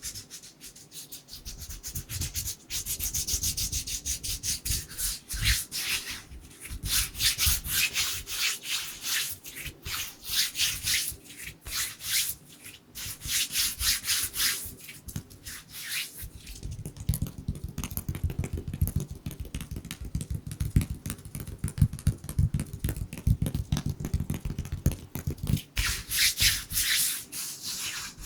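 Bare, dry hands rubbing together close to the microphone in quick, repeated strokes, making a brushy friction hiss that comes in runs with brief pauses.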